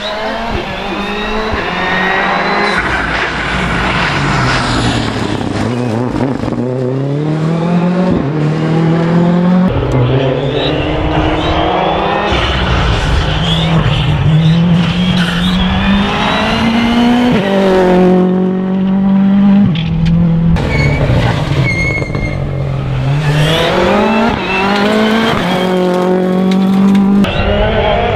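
Ford Fiesta R5 rally car's turbocharged 1.6-litre four-cylinder engine at full throttle. It rises in pitch again and again, dropping at each quick gear change and lifting off for corners, across several passes.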